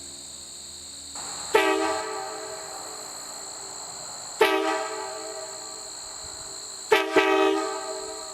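Locomotive-style multi-chime air horn sounded in short blasts: four loud chords that start sharply and die away quickly, the last two close together near the end. A faint held chord fades out about a second in.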